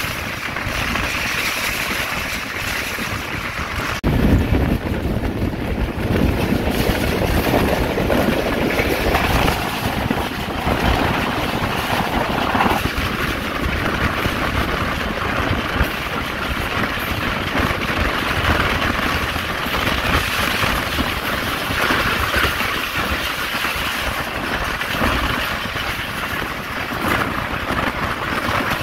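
Pakistan Railways passenger train running on the line: a steady rumble and rush of wheels on rail and moving air, growing louder about four seconds in.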